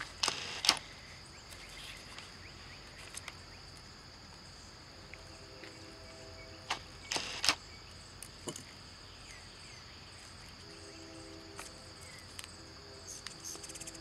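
Steady, high-pitched chorus of insects, with a few sharp clicks and taps, loudest near the start and about seven seconds in.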